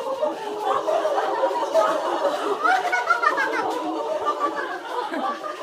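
A group of women laughing together, many laughs and voices overlapping, in a deliberate group laughter exercise called zoo laughter.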